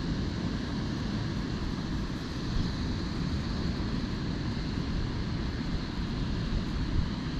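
Steady wind rumbling on the microphone, an even low noise with no distinct events.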